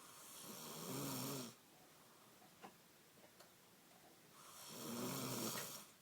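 A sleeping woman snoring loudly. There are two long snores about four seconds apart, each swelling up and then stopping.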